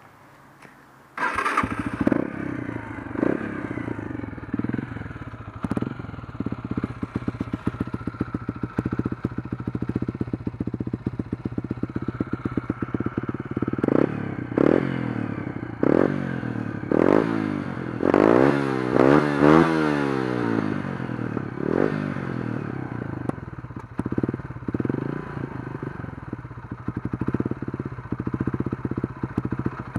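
Yamaha XT 125 R single-cylinder four-stroke engine with an aftermarket Giannelli exhaust silencer. It fires up about a second in, then idles with repeated short throttle blips. A burst of quick revs comes a little past the middle.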